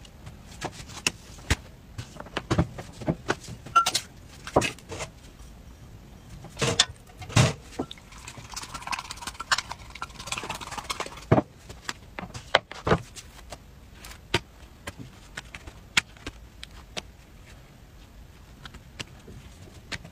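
Handling sounds from making crepes on an electric crepe maker: irregular knocks and taps as the pan and crepes are handled, with a soft hiss of batter cooking on the hot plate for a few seconds in the middle.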